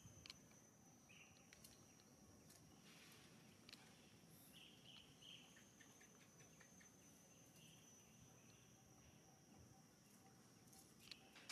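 Near silence: faint outdoor ambience with a steady high-pitched insect drone, occasional short chirps and a few faint ticks.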